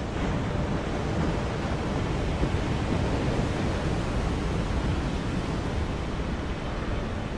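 Heavy ocean surf breaking and rushing, with wind on the microphone: a steady, deep wash of noise with no single distinct crash.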